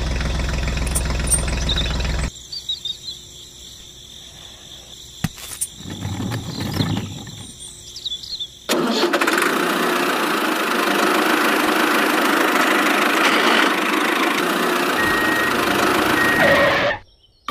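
A motor running with a steady mechanical noise. It is loud for the first two seconds, much quieter until about nine seconds in, then loud and even again until it cuts off just before the end.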